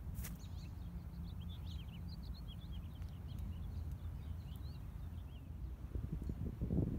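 Small birds chirping, a quick scatter of short high notes, over a steady low rumble. A louder rustling, buffeting noise rises near the end.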